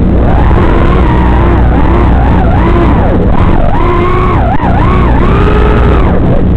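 Racing quadcopter's brushless motors whining, the pitch swinging up and down again and again as the throttle changes through fast manoeuvres, over a steady low hum.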